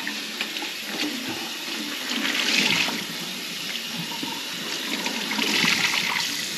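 Water running from the tap into a kitchen sink and down the drain, a steady rush with two louder surges, about two seconds in and again near the end.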